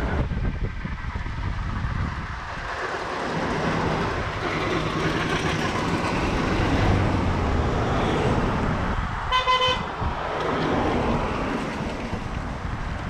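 Cars passing along the road, tyre and engine noise rising and falling as they go by. About nine seconds in, a vehicle horn toots once, briefly.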